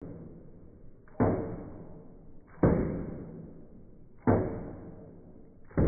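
Four heavy, muffled thuds about a second and a half apart, each ringing out and fading over about a second.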